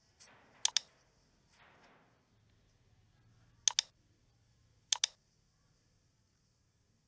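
Computer mouse clicking three times, each a quick sharp pair of clicks, with a faint soft rustle between the first two.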